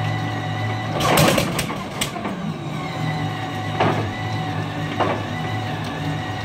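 Merlin V-1650 V12 engine of an unlimited hydroplane running at idle, a steady low drone, with a cluster of sharp cracks about a second in and two more single cracks later.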